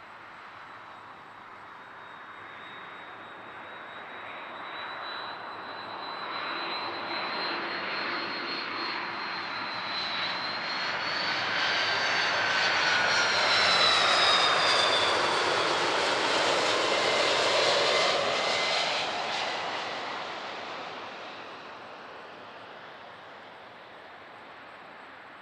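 Airbus A330-300 jet engines on landing approach passing by: a whining rush builds up, is loudest about halfway through, and fades away. The whine drops in pitch as the aircraft goes past.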